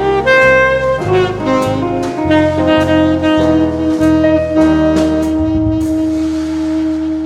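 Jazz-blues instrumental with a saxophone lead over piano, bass and drum kit. About halfway through, the saxophone settles onto one long held note as the tune closes, with a last few drum hits.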